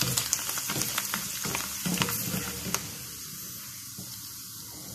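Small batch of puffed crackers frying in a pan of hot oil: a steady sizzle with a few sharp clicks of the wire skimmer against the pan. The sizzle grows quieter after about three seconds as the batch is lifted out of the oil on the skimmer.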